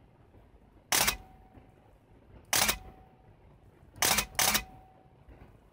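Canon EOS-1 film SLR with Power Drive Booster E1 firing its shutter four times: three separate releases, the last two in quick succession. Each is a short mechanical clack from the shutter, mirror and motor drive, followed by a faint brief whine.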